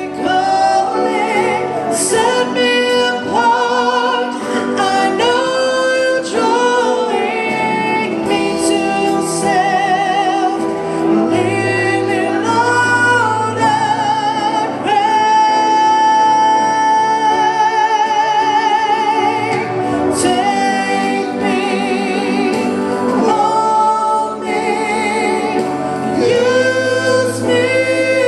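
Gospel worship music: a female lead singer with vibrato, backed by voices and a band, with notes held long.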